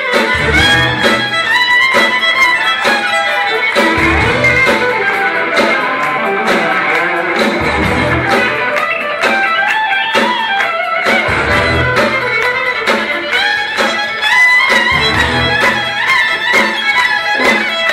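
Live rock band playing: a violin carries the melody over electric guitars, with a low bass note coming in about every four seconds.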